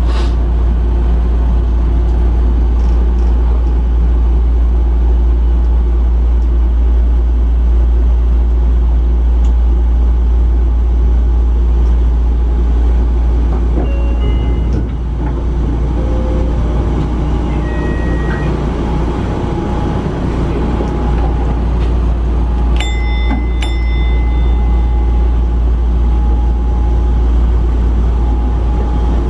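Sotetsu Line electric train running, heard from inside the front car: a steady, loud rumble of wheels and motors on the track. A few brief high-pitched tones cut through about two-thirds of the way in.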